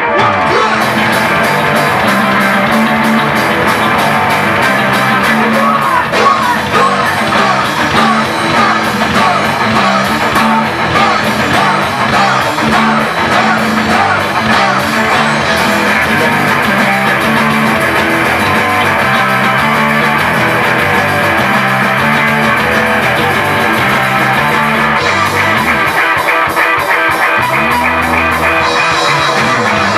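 Live rock band playing loud: electric guitars over a drum kit, with a steady low note pattern and a low note sliding down near the end.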